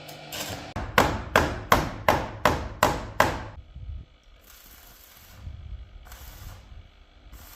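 About eight sharp knocks on wood in a quick even run, roughly three a second, each with a short ring after it. Quieter scraping or hissing noises follow.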